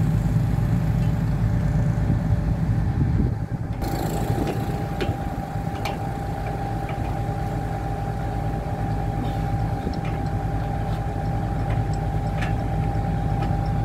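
Hitachi excavator's diesel engine idling steadily. A steady higher hum joins about four seconds in, with a few faint metallic clicks later on.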